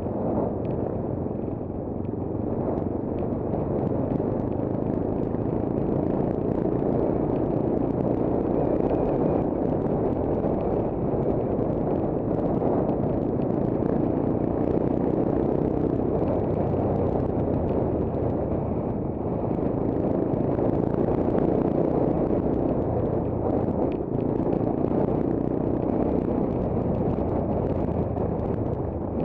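Monkey bike's small engine running at a steady cruising speed, heavily overlaid by wind rushing over the bike-mounted camera's microphone.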